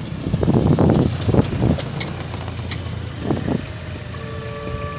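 Off-road rally car passing close by on a sandy dirt track, its engine and tyres loudest about a second in, then dropping away as it goes past. A steady tone comes in near the end.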